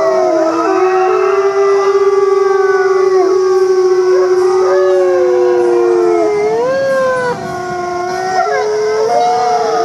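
A chorus of wolves howling: several long howls overlap at different pitches, some holding steady and others sliding up and down, with a brief dip in loudness about seven seconds in.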